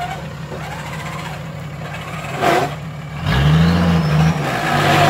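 Toyota Land Cruiser hardtop's engine working under load as it climbs a muddy bank, revving up hard about three seconds in and easing off after a second, with a short burst of noise just before the rev.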